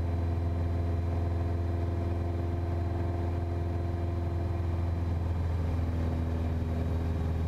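Piper PA-28's piston engine and propeller running steadily in flight, heard inside the cockpit as an even, low drone.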